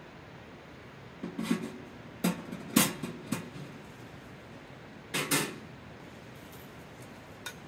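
Metal stovepipe sections of a tent wood stove clanking and knocking as they are handled and fitted. There are several sharp clanks with a brief ring over the first half, then another pair about five seconds in.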